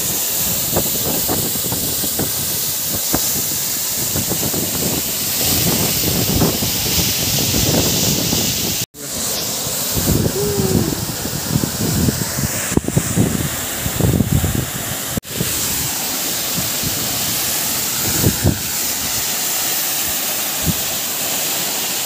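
Waterfall: a steady, loud rush of falling water, broken for an instant twice, about nine and fifteen seconds in.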